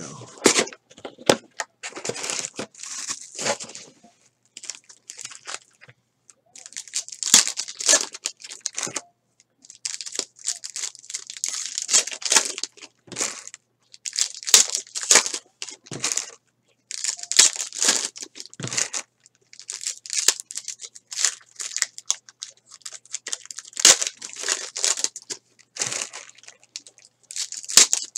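Foil trading-card pack wrappers being torn open and crinkled by hand, in a dozen or so separate crackling bursts with short pauses between.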